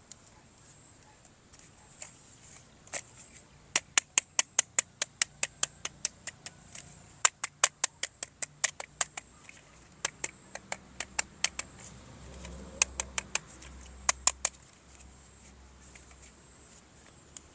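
Plastic toy gun clicking in four quick runs of sharp clicks, about five a second, with short pauses between the runs.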